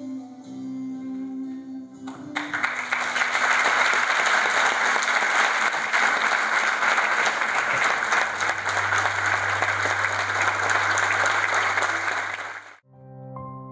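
Audience applauding, starting about two seconds in over a few soft held music notes, and cut off abruptly near the end as piano music begins.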